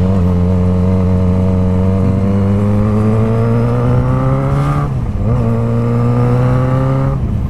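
Yamaha XJ6 inline-four with an aftermarket Firetong exhaust accelerating away: the revs climb steadily in one gear, drop at an upshift about five seconds in, then climb again until a second upshift near the end.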